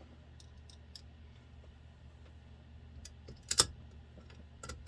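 Light scattered clicks of small metal parts being handled on a workbench, with one sharper clink about three and a half seconds in, over a steady low hum.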